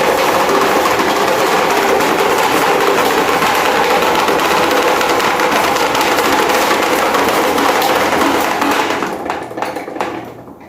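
CCE electric fan running with a dense, steady rattle, shaking so hard that it walks across the floor. The noise fades away over the last two seconds.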